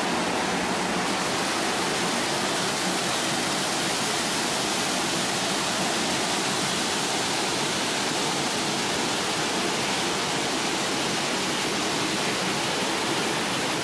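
Water gushing through a canal lock gate and cascading into the lock chamber below: a steady rushing.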